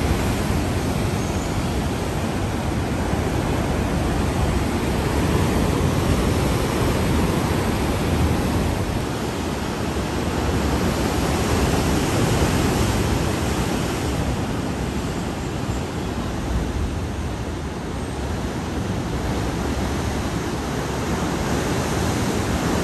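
Sea waves surging and foaming in a narrow rock cleft: a steady rushing noise that slowly swells and eases.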